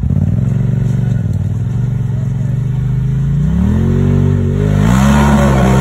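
Side-by-side UTV engine revving as it accelerates for a hill climb. Its pitch rises twice, about three and a half and five seconds in, and it grows louder toward the end.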